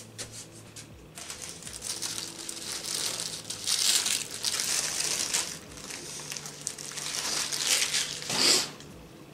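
McDonald's paper sandwich wrapper crinkling and tearing as a breakfast biscuit sandwich is unwrapped by hand, starting about a second in, with a last loud crumple as it cuts off near the end.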